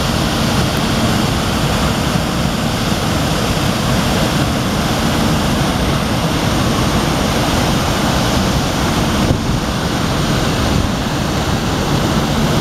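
Steady rush of a flowing river, with wind buffeting the microphone.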